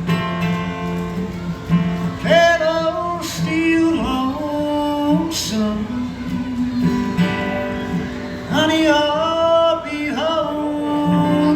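Live folk-country song on acoustic guitar, strummed and picked, with a pitched melody line rising over it in two phrases between the sung lines.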